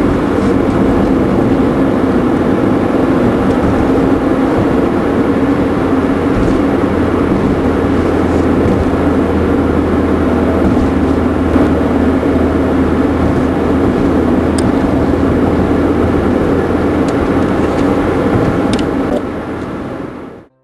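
A loud, steady mechanical rumble with a low hum, fading out over the last two seconds.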